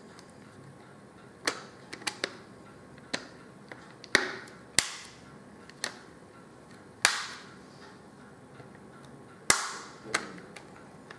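White plastic back cover of a Samsung GT-P3113 tablet being pressed back on, its edge clips snapping into place: about ten sharp clicks at irregular intervals, several with a short ringing tail.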